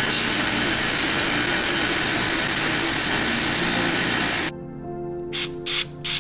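Bench grinder wire wheel spinning against a metal handle fitting of an antique waffle maker, a steady harsh hiss as it brushes the old finish off. It stops abruptly about four and a half seconds in, leaving background music with a few short hisses.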